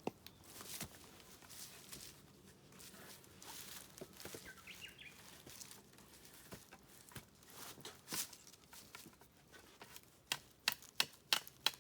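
Scattered light knocks and clicks, ending in a quick run of about eight sharp taps.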